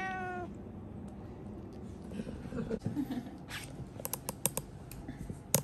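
A cat meows once at the start. About four seconds in comes a run of sharp clicks from pet nail clippers snipping a cat's claws, the loudest near the end.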